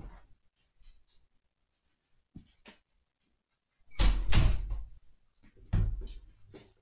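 Five-week-old kittens scampering on a rug right at the microphone. It is nearly quiet at first with a couple of faint ticks, then there are two loud thumps with rustling, about four and about six seconds in, as a kitten comes up close to the camera.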